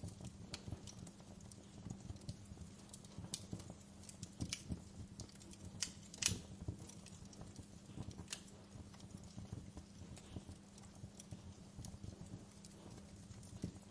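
Wood fire crackling in a fireplace, with irregular sharp pops; the loudest pop comes about six seconds in. A faint, steady low hum runs underneath.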